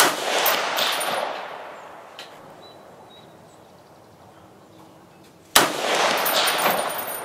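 Two shots from an M14-pattern 7.62 mm NATO semi-automatic rifle, about five and a half seconds apart, each sharp report ringing on for over a second under the range's covered shooting shed.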